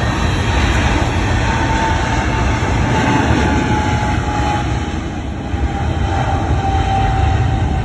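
Jet engines of airliners on the runway and taxiway: a loud, steady rumble and roar with a faint thin whine that drifts slowly down in pitch.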